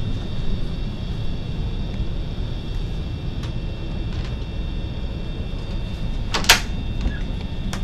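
Wooden closet door being handled and opened, with a few light knocks and a sharp double click about six and a half seconds in, over a steady low hum of cabin air conditioning.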